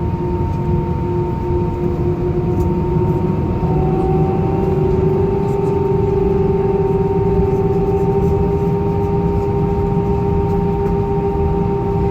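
Airbus A319 jet engines heard inside the cabin: a steady whine over a low rumble. About four seconds in, the whine rises a little in pitch and the sound gets slightly louder as thrust increases.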